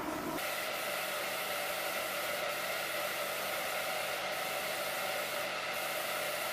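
Ventilation fans of an aircraft paint hangar running: a steady rush of air with a faint steady hum. A lower rumble drops away about half a second in.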